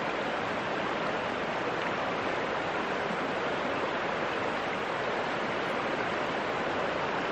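Stream water flowing steadily, an even rushing sound.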